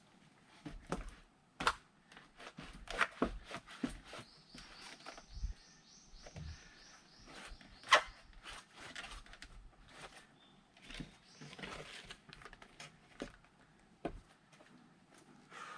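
Sharp wooden knocks and clatter from firewood being split and handled, irregular throughout, the loudest a sharp crack about eight seconds in. A high chirping call repeats about four times a second from about four to seven seconds in.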